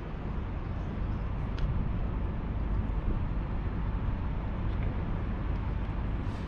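Steady outdoor background noise: a low rumble with a hiss above it, with one faint tick about a second and a half in.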